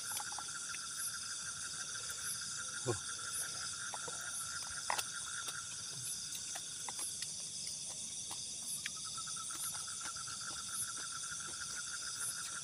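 Steady chorus of crickets and other night insects, several trills at different pitches at once; the lowest trill drops out about seven seconds in and comes back about two seconds later. A few faint clicks and taps come through as well.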